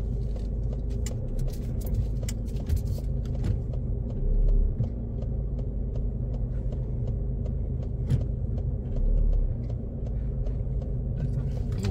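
Car engine and road noise heard from inside the cabin as the car pulls away slowly and turns, with light clicks throughout and two brief low rumbles about four and nine seconds in.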